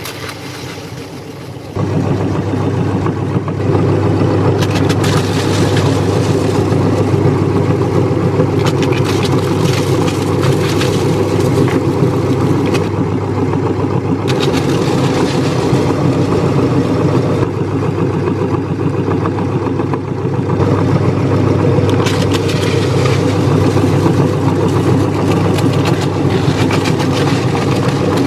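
Electric meat grinder running steadily, its motor hum getting louder about two seconds in, with a continuous crackling as crunchy cookies are ground.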